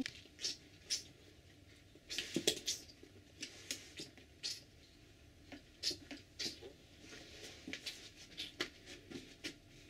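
Light, scattered clicks, taps and scrapes of plastic Hot Wheels track pieces being handled and moved on carpet, with a louder cluster of clicks about two and a half seconds in.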